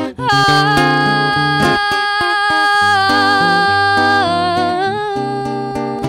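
Classical guitar with nylon strings playing accompaniment, while a woman's voice holds a long wordless note with vibrato that steps down in pitch about four seconds in.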